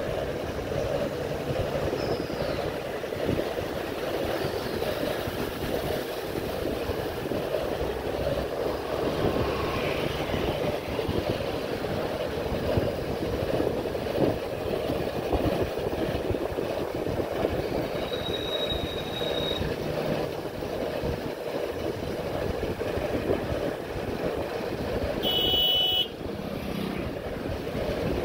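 Steady rumbling rush of wind and road noise while riding a bike. A brief high tone sounds about 18 seconds in, and a short shrill squeal near 25 seconds, after which the rumble drops suddenly.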